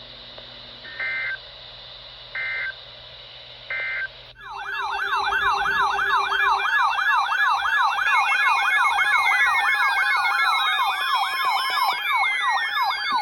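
Three short electronic data-tone bursts, evenly spaced about a second and a half apart: the EAS/SAME end-of-message code closing a weather alert. About four seconds in, loud electronic siren tones begin: a fast yelping warble, joined later by long falling wails, as a warning alert opens.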